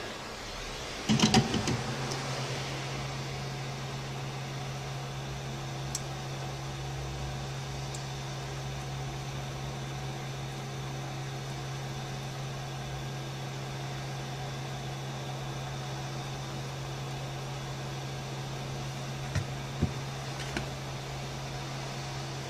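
A cluster of clicks about a second in, then a small electric machine starts and runs with a steady hum; a few faint clicks near the end.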